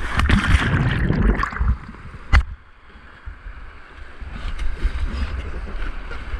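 Whitewater rushing and splashing as a river tube drops through a rapid, loudest in the first second and a half. A sharp knock comes a little over two seconds in; the water noise then drops off and builds again.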